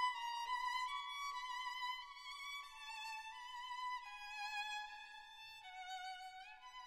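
Background music: a violin playing a slow, high melody with vibrato. The held notes step gradually downward, with a quick upward slide near the end.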